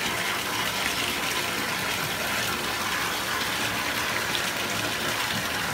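Bathtub filling: water running steadily from the tap into the tub.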